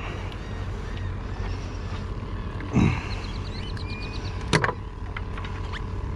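Steady low motor hum, with handling noises over it: a dull thump near three seconds in, a quick run of light ticks, then a sharp knock about four and a half seconds in.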